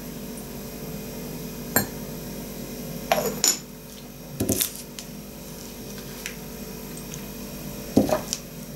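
Small clay teapot and teacup being handled: a few light clinks and knocks spread over several seconds, the last about eight seconds in as the teapot is set down on the table.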